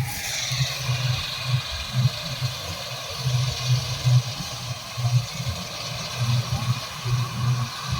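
Engine running with an uneven low throb under a steady hiss.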